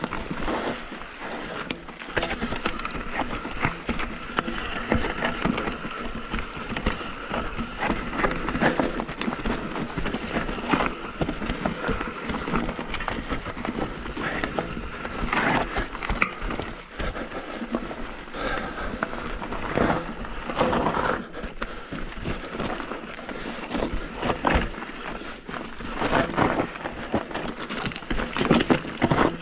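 Mountain bike riding down a rocky trail: tyres crunching over gravel and stones, with frequent sharp knocks and clattering of the bike over rocks throughout.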